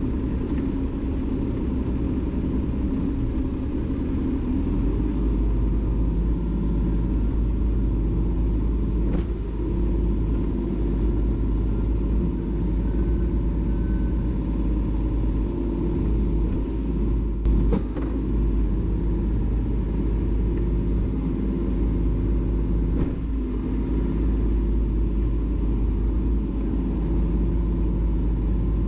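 John Deere 35G mini excavator's diesel engine running steadily, a deep rumble that strengthens about five seconds in, with a few short knocks.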